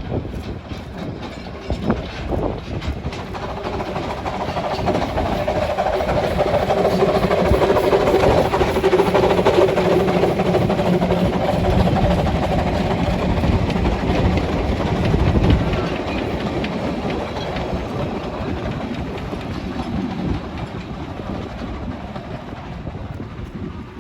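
Two narrow-gauge Quarry Hunslet 0-4-0 saddle-tank steam locomotives working a train past. Their exhaust chuffing builds, is loudest around the middle, then fades away.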